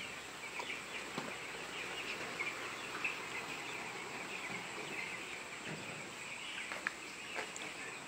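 A large flock of young broiler chicks peeping all at once, a dense steady mass of short high calls, with a few sharp clicks in between.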